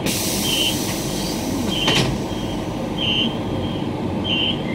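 Queensland Rail EMU electric train standing at a station: a sudden hiss of compressed air from its pneumatics lasts about two seconds and ends in a sharp clunk. The car's steady hum continues underneath, with short high electronic beeps repeating about every 1.2 seconds.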